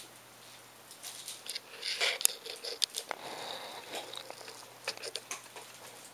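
A dog chewing and crunching on something hard: a run of crisp crunches and clicks that starts about a second in and is loudest around two seconds in.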